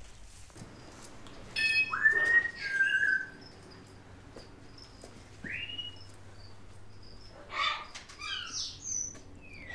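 Blue-and-gold macaw calling: a loud harsh squawk with whistled glides about two seconds in, a single rising whistle midway, then a run of short calls ending in a falling whistle.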